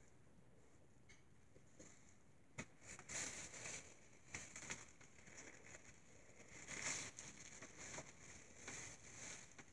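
Faint, intermittent crinkling of a plastic wrapper, with a single sharp click a little over two seconds in.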